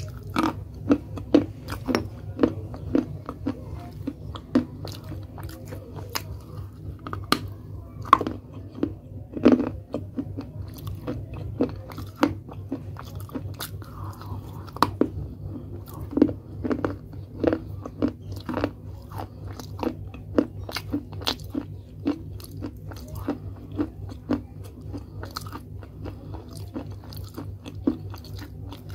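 Pieces of a small unglazed clay pot being bitten off and chewed: repeated sharp, crisp crunches, over a low steady hum.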